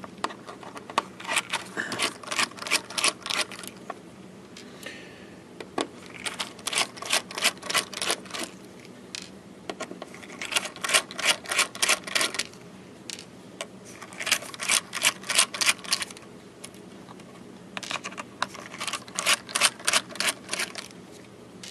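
Screwdriver backing the cover screws out of a hard drive, in five runs of rapid clicking with short pauses between.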